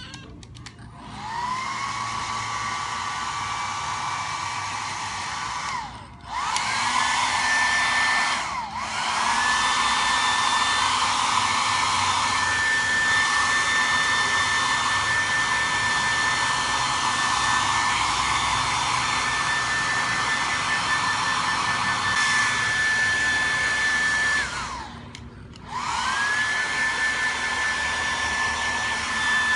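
Hair dryer blowing with a steady rush and a whining tone. It is switched off and back on several times, and each time it restarts the whine rises as the motor spins up; the first run, about a second in, is lower in pitch than the later ones.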